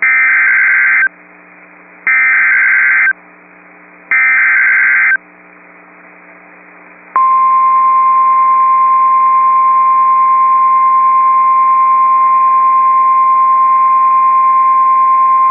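Emergency Alert System weather-radio alert tones: three one-second bursts of SAME digital header data, about two seconds apart, followed about seven seconds in by the steady single-pitch 1050 Hz NOAA Weather Radio warning alarm tone, which holds. A faint steady hum and hiss lies underneath between the tones.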